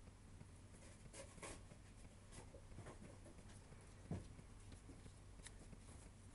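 Near silence with faint scattered rustles and clicks, and one soft low thump about four seconds in.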